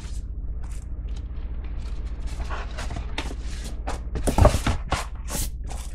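Packaging rustling and crinkling as items are handled and unpacked, in short irregular bursts, with a single louder thump about four and a half seconds in, over a steady low hum.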